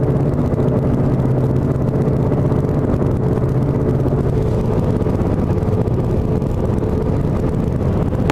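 Steady engine and road noise heard inside a moving car, with a constant low hum.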